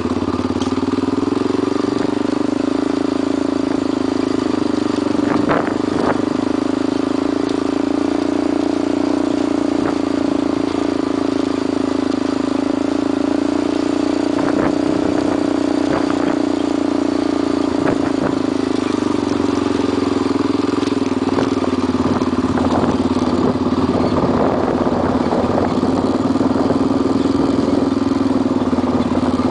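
ATV engine running steadily while the machine travels over a rough dirt track, with occasional knocks and rattles, more frequent in the second half.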